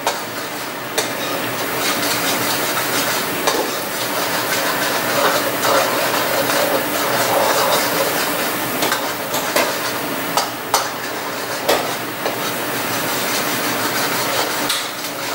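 Minced garlic sizzling in melted butter in a frying pan, stirred with a spoon that clicks and scrapes against the pan every second or two. The garlic is being sautéed until it turns golden.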